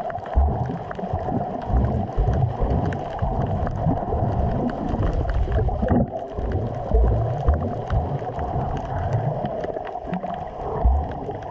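Muffled water noise picked up by a camera held underwater: sloshing and gurgling, with irregular low thumps and small clicks.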